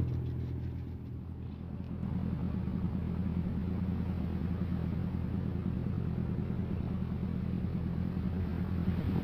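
Longline fishing boat's engine running steadily, a low drone that dips briefly about a second in and then holds even.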